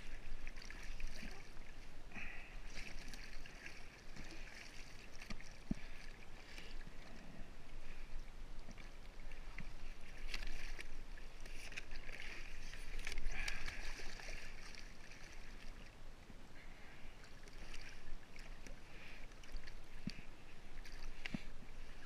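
Sea water sloshing and lapping against a kayak's hull, with scattered small knocks.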